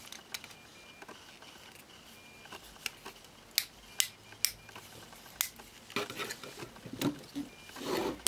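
Plastic clicks and knocks from a large Transformers action figure being handled, its parts and joints clicking as it is repositioned to stand. There are a dozen or so separate clicks, with a rustle of handling about six seconds in and again near the end.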